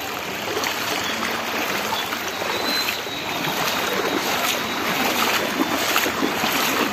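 Floodwater rushing and churning across a submerged road, a steady broad wash of running water.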